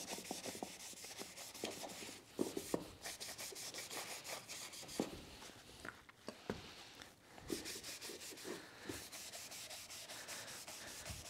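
Cloth rag wiping finish onto a small walnut and maple box: soft, uneven rubbing strokes on the wood, with a few light knocks.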